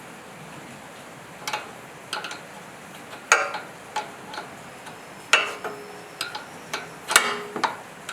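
Irregular metallic clinks and knocks, about nine in all and a few followed by a short ring, as metal tools and parts are handled during work on a generator.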